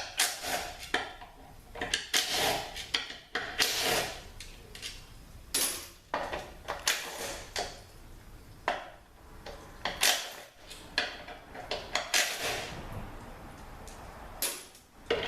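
Irregular metal clinks, clatters and scrapes of hand tools and steel transmission parts being handled, with several sharper knocks.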